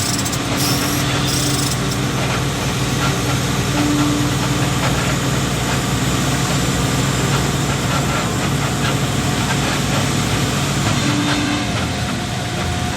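A motor vehicle's engine running steadily under a constant noisy hiss, with no change in speed or pitch.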